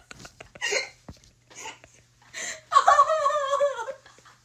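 Breathy gasping laughter, rising about three seconds in into a long, wavering, high-pitched laugh, over a faint steady hum.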